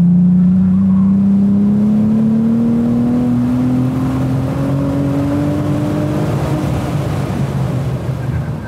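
Cadillac ATS-V's twin-turbo V6 accelerating hard in third gear, its engine note rising steadily for about seven seconds, then fading near the end as the revs stop climbing.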